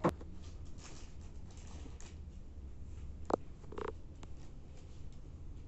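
Handling noise from the hand-held camera moving in close over the puja plate: a few sharp clicks, one right at the start and another about three seconds in, and a short rustle, over a low steady hum.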